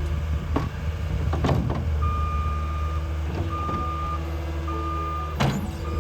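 A heavy vehicle's engine running low and steady, with a reversing alarm beeping at one pitch about once a second from about two seconds in. A few knocks are heard, the loudest near the end.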